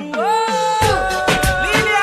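A dance music track starts. Held notes slide up into pitch, then a steady beat of drums and bass comes in just under a second in.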